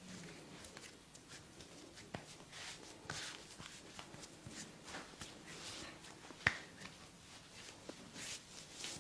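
Hands rubbing and kneading during a head and body massage, a soft rustle broken by scattered light clicks, with one sharp click about six and a half seconds in.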